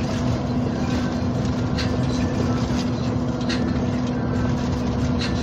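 A truck's diesel engine runs steadily while driving, heard from the cab as a constant hum under road and tyre noise.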